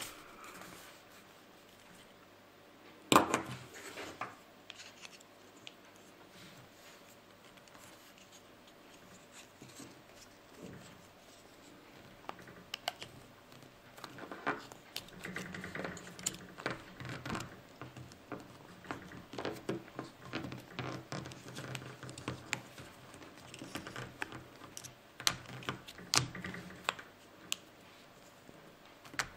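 Handling noises from a small plastic safety light and its rubber strap being fitted by hand: scratching, rubbing and scattered plastic clicks, with one sharp knock about three seconds in.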